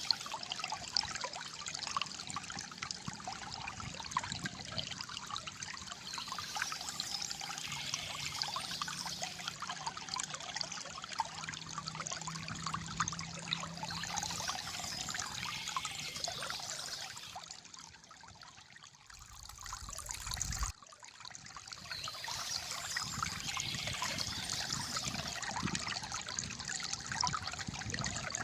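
Shallow water flowing and gurgling steadily over stones, with a constant bubbling trickle. About two-thirds of the way through it quietens briefly, and a short low rumble cuts off suddenly.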